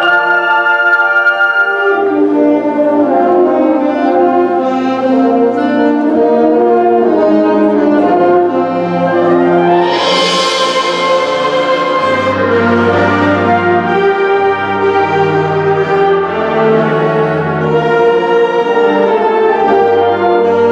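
High school symphonic band playing sustained, brass-heavy chords. Low notes come in about two seconds in, and a bright crash rings out and fades about halfway through.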